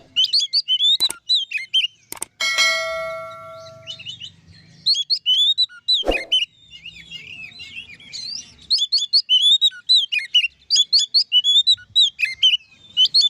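Oriental magpie-robin singing full, open song: fast runs of varied whistled, sliding notes with short pauses. About two seconds in, a single ringing metallic tone fades out over about a second and a half, and a few sharp clicks sound between phrases.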